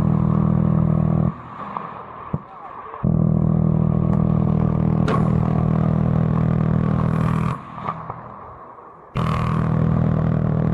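Minigun firing in three long bursts, a steady buzzing drone at its very high rate of fire that starts and cuts off abruptly. Between the bursts there are quieter stretches with a few sharp cracks.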